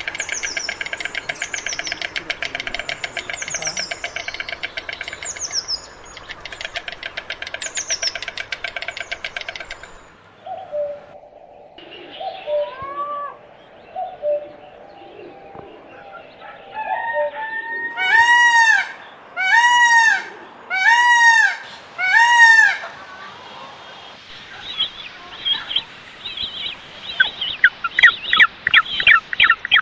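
A succession of different bird calls. First comes dense high chirping with repeated falling whistles for about ten seconds, then softer scattered calls. Next come four loud arching calls about a second and a half apart, and near the end a rapid chattering trill.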